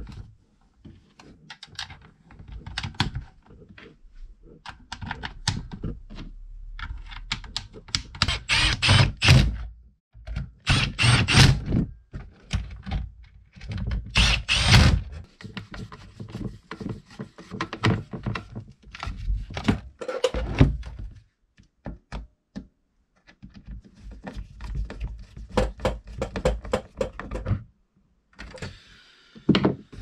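Plastic housing of a Challenge electric hedge trimmer being handled and set down on a workbench, giving irregular clunks, knocks and clicks as it is screwed back together with a screwdriver. A few louder scraping handling noises come in bunches partway through.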